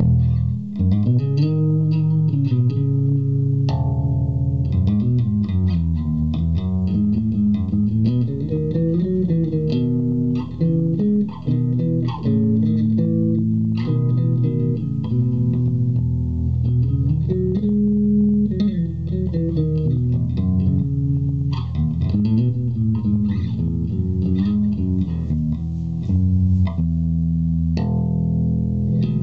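A 1962-reissue Fender Jazz Bass played fingerstyle through an Orange Terror Bass 1000-watt valve and solid-state hybrid head and speaker cabinet: a continuous bass line of running notes that climb and fall in pitch.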